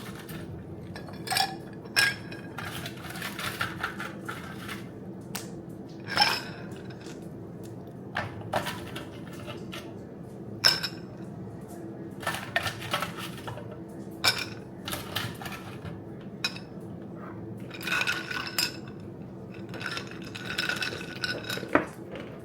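Ice and kitchen utensils clinking against a drinking glass in scattered, irregular sharp clinks, over a steady low hum.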